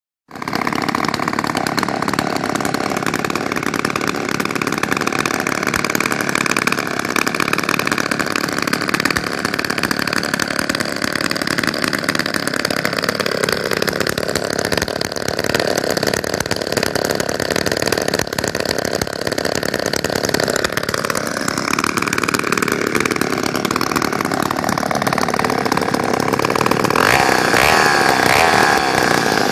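Two 1968 Poulan 53 82 cc two-stroke chainsaws idling together on the ground, loud. Their two engine notes drift in and out against each other, and one saw grows louder near the end.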